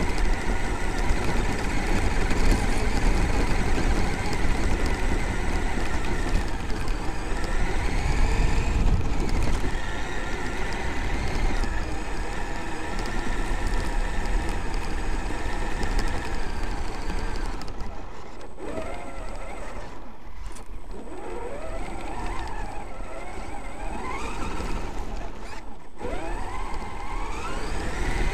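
Traxxas X-Maxx electric RC monster truck running over a gravel track, heard from its onboard camera: gravel crunching and rumbling under the tyres. In the second half the motor's whine rises in pitch several times as it accelerates, with brief lulls between.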